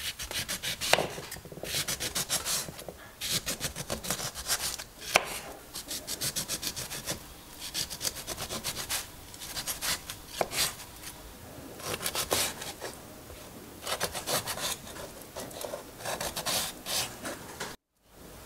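Small kitchen knife sawing through a lemon on a wooden cutting board: runs of quick back-and-forth rasping strokes through the rind, with a few sharp knocks against the board.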